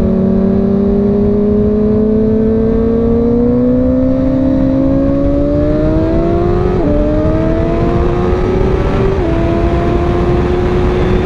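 Honda CBR1000RR inline-four engine accelerating, its pitch climbing steadily and then dropping sharply twice, about seven and nine seconds in, as it shifts up through the gears with the quick shifter. After the second shift it holds a steady pitch.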